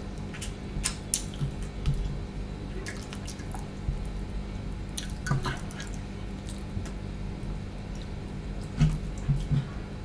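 Close-up wet mouth sounds of someone eating rice and curry by hand: chewing and lip smacks heard as scattered sharp, sticky clicks, with a few soft low thumps near the end.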